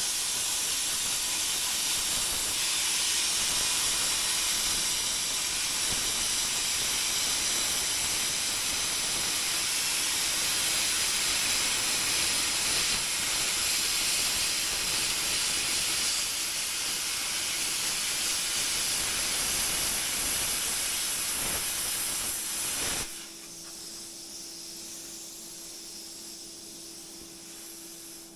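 A cutting torch hissing steadily as it cuts through the steel of a truck's bed. The hiss cuts off about 23 seconds in, leaving a quieter steady hum.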